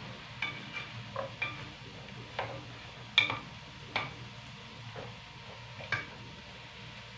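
Wooden spatula stirring vegetables in a stainless steel pan, knocking against the pan in irregular clicks, the loudest about three seconds in, over a low sizzle of the sauté. The knocks stop about six seconds in.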